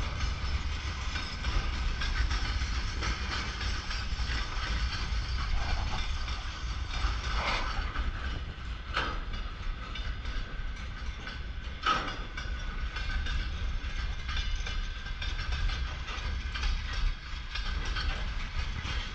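Freight wagons of a mixed goods train rolling past: a steady rumble of steel wheels on the rails, with a few brief sharp metallic noises standing out, the strongest about twelve seconds in.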